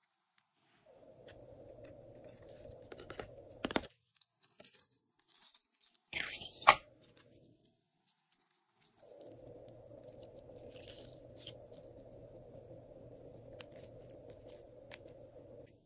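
Glossy slime being stretched and squished by hand: sticky crackling and tearing sounds with scattered clicks, and one sharp pop a little after six seconds.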